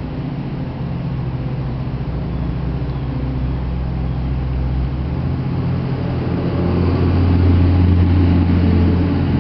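Car engine and road noise heard from inside the cabin, a steady low hum that swells louder about six to eight seconds in as the car picks up speed.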